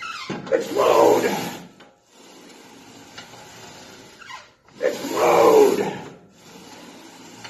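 A man's two forceful, straining exhalations with a grunt, about four seconds apart and each lasting over a second, as he drives up heavy repetitions on a weight machine.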